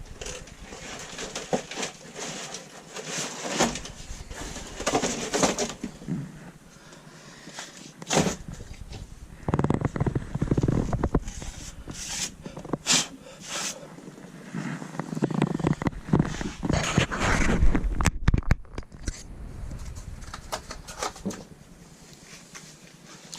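Bitumen sound-deadening mats being handled and laid on a car floor: irregular rustling and crinkling with sharp clicks, and stretches of dull thumps as the sheets are pressed down.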